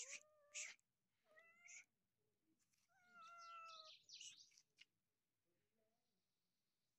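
Calico cat meowing three times: a short rising meow, another short one, then a longer meow about three seconds in. Short hissing sounds come between the calls.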